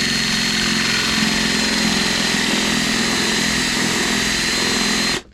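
Electric drill running steadily at speed with a 1-1/8-inch Forstner bit, boring a hole through the trim panel, with a high, even motor whine. It stops suddenly near the end.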